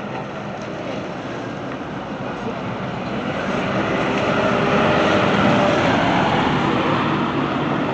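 A motor vehicle driving past close by, its engine and tyre noise building to a peak about five seconds in, then easing off a little.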